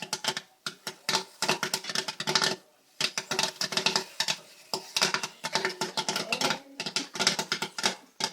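Home popcorn machine with kernels popping rapidly and irregularly, a fast crackle of many sharp pops with a couple of brief lulls: the popcorn is in full pop.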